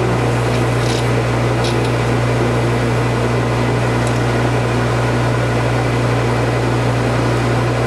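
Manual metal lathe running steadily, its motor and geared headstock giving an even hum, with a few faint light clicks.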